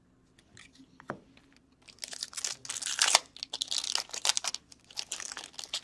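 A sports-card pack wrapper being torn open and crinkled by hand, in a dense crackling run that starts about two seconds in. A light knock comes about a second in.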